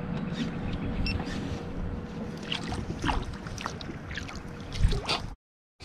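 Wind and small waves lapping against a fishing boat's hull, under a faint steady hum, with scattered light clicks and a couple of knocks near the end; the sound cuts off abruptly just before the end.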